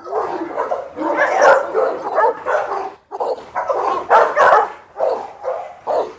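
Several XXL American bully dogs in kennel runs barking, one bark crowding on the next, with a short break about three seconds in.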